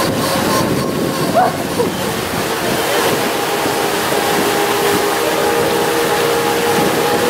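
Steady splashing of fountain jets, an even wash of water noise with a faint steady hum underneath.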